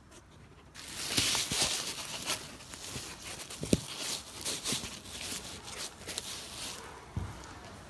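Phone being handled close to clothing: rustling and rubbing against the microphone, with a few sharp knocks, starting about a second in.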